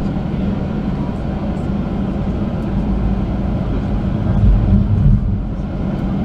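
Boeing 737-800's CFM56-7B jet engines running at taxi thrust, heard inside the cabin as a steady low hum. A deeper rumble swells briefly about four and a half seconds in as the airliner rolls onto the runway.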